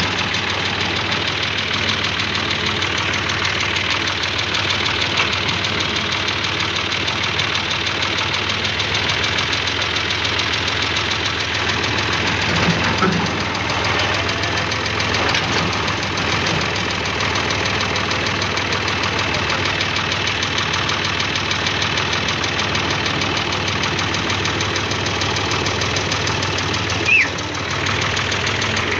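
Tractor diesel engine running steadily while the tractor reverses slowly. There is one brief sharp noise near the end.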